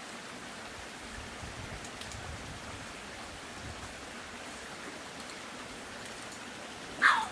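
A small raccoon held in a catch-pole noose gives a single short, loud squeal that falls sharply in pitch near the end. A steady hiss runs behind it.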